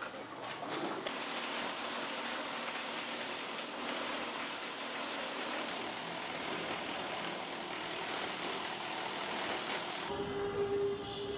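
A plastic grinding machine running, a steady, dense rushing noise as it shreds plastic into flakes. Near the end it gives way to street traffic with a vehicle horn sounding.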